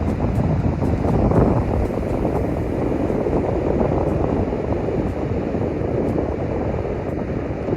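Steady wind buffeting the microphone over the continuous rush of sea surf on the beach.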